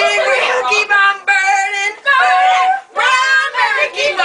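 A woman singing in short phrases of held, wavering notes, with brief breaks between phrases.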